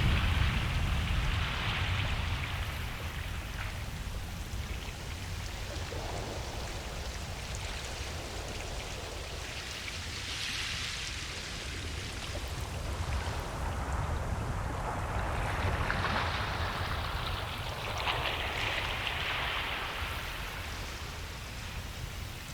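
Ocean waves breaking and washing up a beach: a steady low rumble of surf with hissing surges that swell and fade every few seconds.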